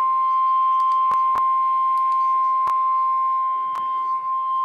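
Weather-radio warning alarm: a single steady high tone, held without a break, with a few sharp clicks over it. It is the attention signal that comes before a spoken severe thunderstorm warning.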